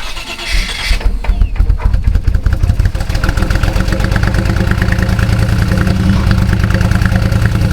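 Holden VT Commodore's 304 (5.0-litre) V8 cranking on the starter, catching about three seconds in and then idling steadily. It is the engine's start after years of standing unused, on freshly reconnected fuel lines.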